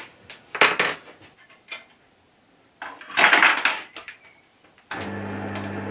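A few metal clinks and a short scrape from handling the lathe's headstock controls, then about five seconds in the Record Power DML305 midi lathe's motor switches on and runs with a steady low hum. It is turning at a low speed so the grease can work around the newly fitted spindle bearings.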